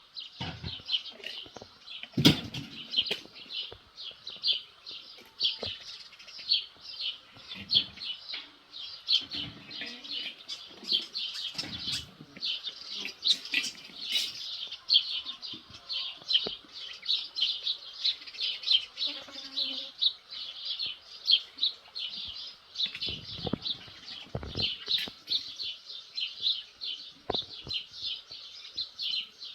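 Small birds chirping continuously in quick short notes, several a second. Scattered low thuds and knocks occur, the loudest about two seconds in.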